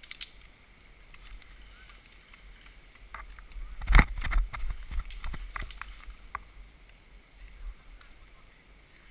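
Footsteps crunching and rustling through dry fallen leaves, with irregular knocks that are loudest about four seconds in, over a low wind rumble on a GoPro microphone.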